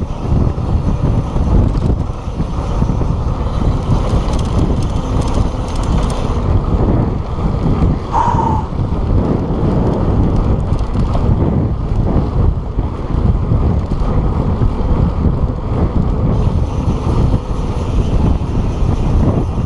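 Heavy wind buffeting on the camera microphone of a mountain bike rolling down a dirt trail, with the rumble of the tyres on the packed dirt underneath. A single short high note cuts in briefly about eight seconds in.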